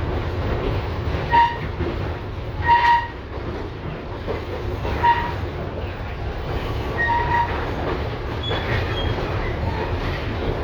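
LVS-2009 tram running with a steady low rumble. Several short high-pitched tones sound over it about one and a half, three, five and seven seconds in, the first two the loudest.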